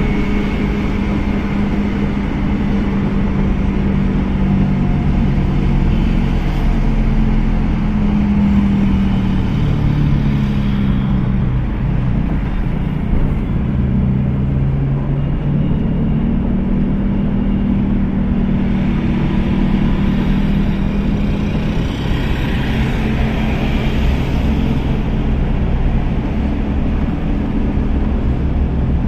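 Car engine and road noise heard from inside the cabin of a moving car. The engine hum drifts up and down in pitch as the car speeds up and eases off.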